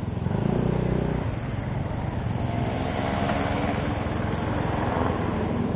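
Motorcycle engine running steadily at low speed, with a brief rise in engine sound about half a second in.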